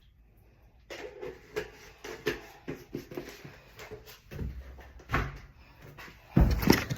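Handling noises: irregular light knocks and clicks, then a few heavier thumps near the end.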